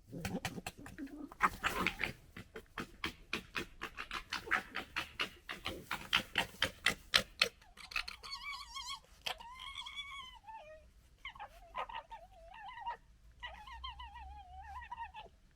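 Red foxes gekkering: a fast, stuttering chatter of short clicks during a squabble. From about eight seconds in it gives way to a series of high, wavering whines.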